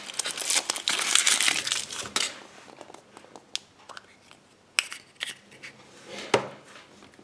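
Foil wrapper of a Kinder Surprise chocolate egg crinkling for about two seconds as it is peeled off, then a few sharp clicks and cracks as the thin chocolate shell is split and the plastic capsule inside is handled.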